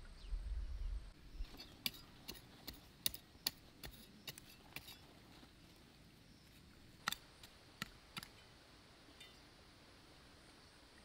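A run of light, sharp clicks and taps, about two or three a second for a few seconds, then a handful of scattered ones, over faint outdoor background. A low rumble sits under the first second.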